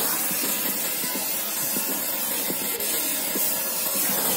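Brazing torch flame hissing steadily while a copper refrigerant line joint is brazed.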